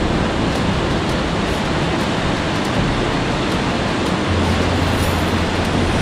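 River rapids: water rushing steadily over boulders in whitewater, a loud, even wash of noise.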